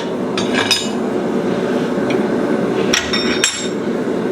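Steel pieces clinking and knocking together as they are handled, a few short metallic clinks with a brief ring about half a second in and again around three seconds in, over a steady background drone.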